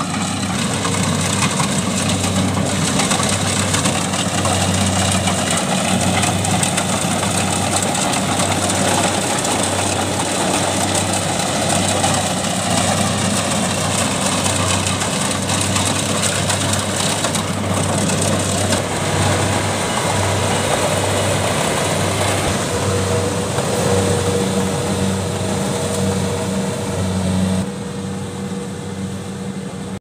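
Kubota rice combine harvester's diesel engine and cutting machinery running steadily as it harvests standing rice, a low pulsing hum under a wash of machine noise. The level drops noticeably near the end.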